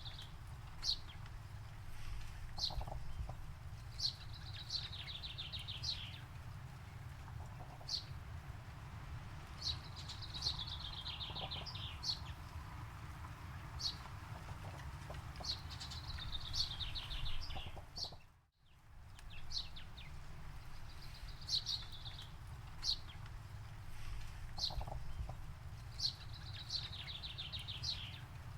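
Songbird singing: a few sharp single notes between longer, falling, rattling phrases, one every several seconds, over a steady low rumble. The sound cuts out completely for a moment about two-thirds of the way through.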